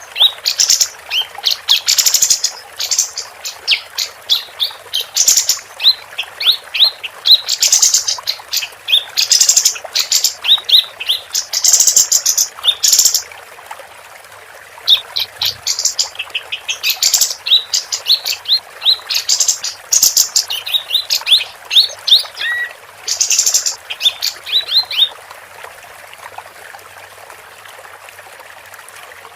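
Female kapas tembak bulbul singing: fast runs of short, sweeping high notes mixed with harsh chattering phrases, repeated in bursts. The song stops about 25 seconds in, leaving a steady hiss like trickling water.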